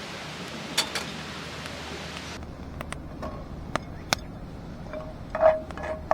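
Metal camp cookware clinking: light taps that ring with a short metallic tone, coming more often from about five seconds in. Before this, a steady hiss with a few sharp clicks cuts off about two seconds in.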